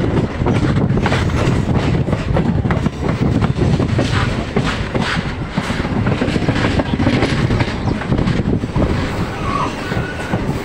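MEMU passenger train running along the track, heard from an open coach door: a steady heavy rumble from the wheels and coaches, with irregular clicks and clatter from the wheels on the rails.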